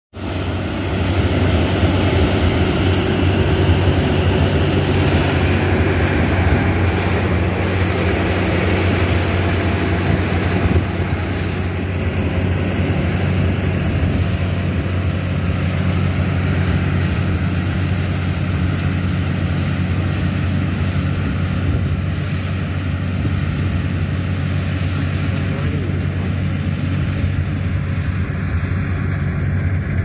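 Javatech rice combine harvester running steadily as it harvests, a continuous low engine hum; louder for the first ten seconds or so, then a little quieter.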